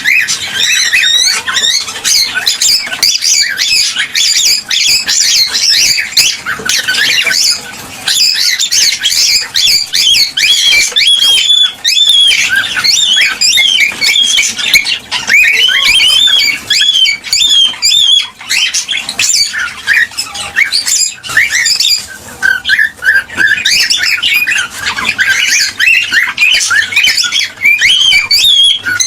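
Cockatiels chirping and whistling without a break, many short rising and falling calls overlapping one another, the kind of breeding-season calling played to get cockatiels to mate.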